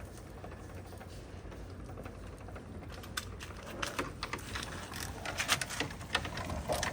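Irregular light clicks and taps begin about three seconds in, over a low steady hum.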